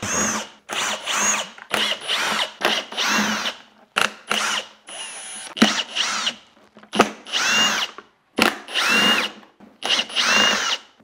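Cordless RIDGID drill/driver backing out screws from a shop vac's plastic motor housing, in about a dozen short runs. Each run is a whine that rises and falls, with short pauses between them as the bit moves from screw to screw.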